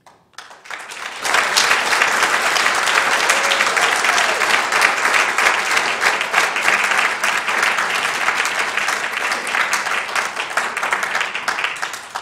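Audience applauding: the clapping builds up over the first second, stays steady for about ten seconds, then dies away.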